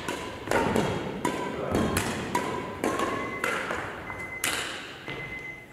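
Badminton play: a string of sharp racket hits on a shuttlecock, roughly one every half second to a second, with short squeaks among them, ringing in a large hall.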